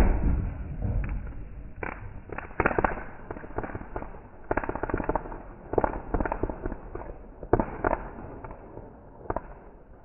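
Fireworks going off: a loud bang right at the start, then bursts of rapid crackling pops coming in clusters about every second, thinning out near the end.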